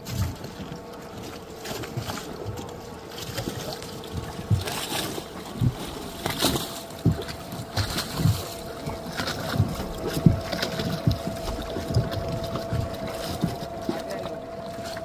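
Footsteps on wooden dock planks, about one step a second, over the steady hum of a boat's outboard motor on the water; the hum steps up in pitch about six seconds in and then holds steady.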